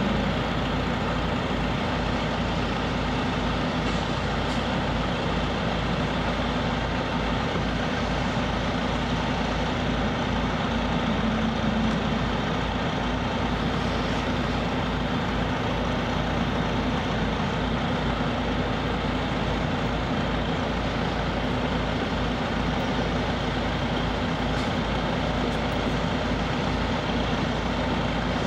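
A heavy engine running steadily at idle, an unchanging low drone with a constant hum.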